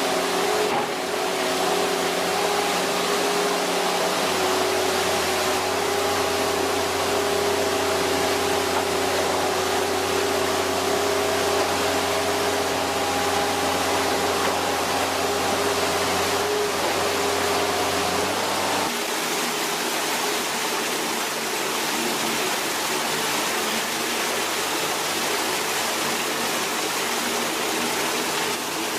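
A machine running steadily: a loud, even rushing noise with a steady hum on top. The hum changes abruptly about 19 seconds in, and a low part of it drops away.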